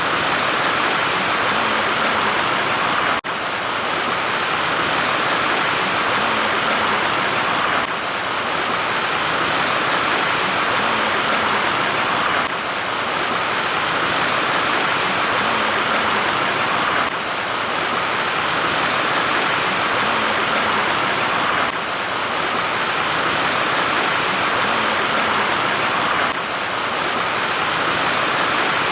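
Waterfall streams rushing: a steady, dense hiss of falling water, shifting slightly in level every four to five seconds.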